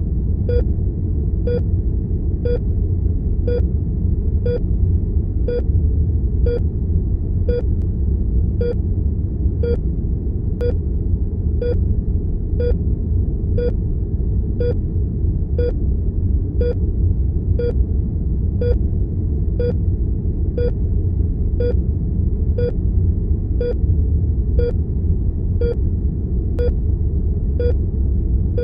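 Heart monitor beeping evenly, about once a second, over a steady low rumble of room tone.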